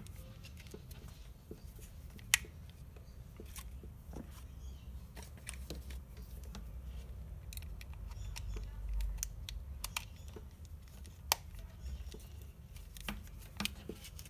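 Scattered clicks and taps from the plastic and metal housing of a Wahl Detailer hair trimmer being handled and fitted together by hand, over a low handling rumble. Two clicks are sharper, about two seconds in and about eleven seconds in.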